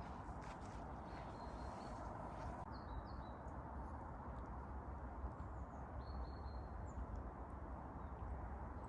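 Scattered short, high bird chirps over a steady low background rumble of outdoor ambience.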